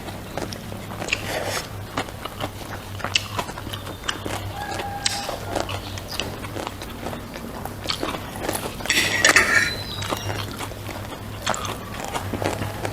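A person biting and chewing food close to the microphone, wet chewing with scattered small crunches and clicks, over a steady low hum.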